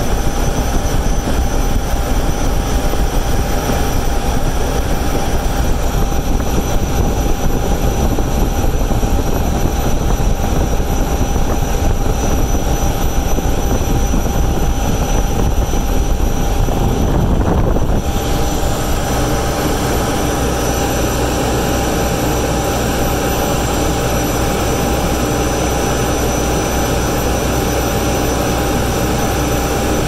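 Diesel trailer generator and a 12-ton Trane package HVAC unit running under cooling load, with compressor, condenser fan and blower on: a steady loud machine drone with air rushing from the supply duct. About 18 seconds in the sound drops a little and its tone shifts.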